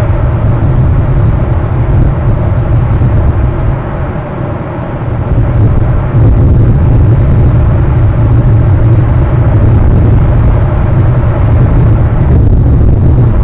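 Loud, steady low rumble of wind and surf on an outdoor camera microphone, easing briefly about four seconds in.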